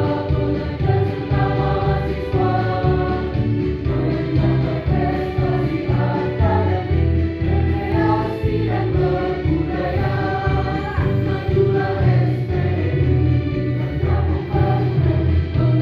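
Mixed choir of men and women singing together, holding long notes that change every second or so.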